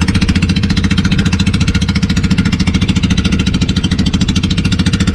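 Small engine of a motorized outrigger boat running steadily under way, with a fast, even chugging beat.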